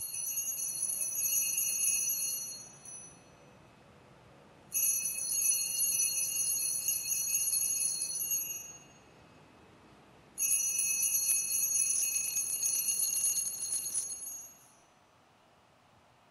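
Small altar bells rung three times, each ring a bright, high jingling of about three to four seconds that fades out. They mark the elevation of the chalice at the consecration of the Mass.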